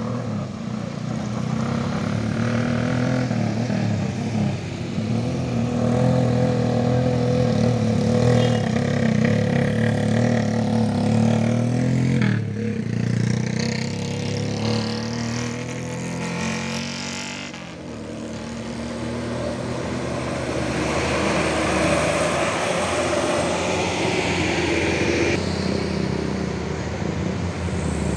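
Engines of vehicles driving up a rough, broken gravel road one after another. First an MPV, then a dump truck's diesel engine pulling under load, with a motorcycle and a bus coming up near the end.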